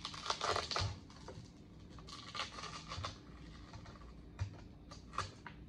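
Handling noise from a 3D-printed plastic fan housing being lifted and turned over by hand: a quick run of scrapes and clicks at the start, then a few single plastic knocks and taps.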